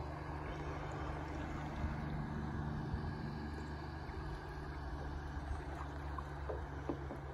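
A motorboat engine running steadily, a low even hum over the sound of water, with a few light clicks near the end.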